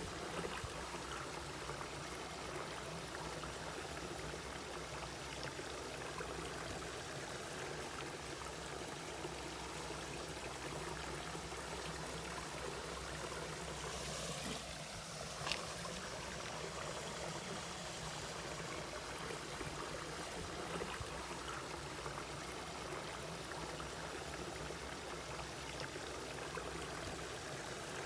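Mountain valley stream flowing steadily, a continuous rush of water, with one brief sharp click about halfway through.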